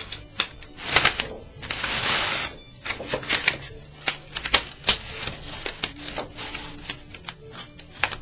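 Irregular clicks, taps and rubbing as a wooden flesh hoop is pushed through the edge of a banjo head's material around the rim, with a louder sliding rush about two seconds in.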